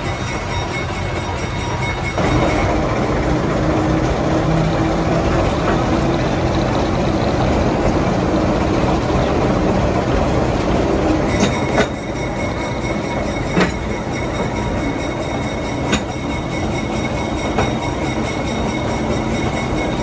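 General Electric diesel switcher locomotive running as the train rolls along, with steady rumble and wheel noise. The engine gets louder about two seconds in, and its note climbs slowly. A few sharp clicks follow in the second half, as over rail joints.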